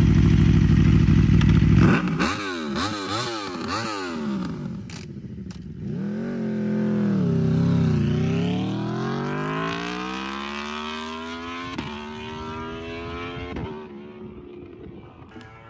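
V4 engine of a 2014 Aprilia RSV4 with an Austin Racing GP1R slip-on exhaust, running close and loud. About two seconds in, it drops away. It then pulls off through several quick rises and falls in pitch as the gears change, climbs again in long rising sweeps, and fades into the distance near the end.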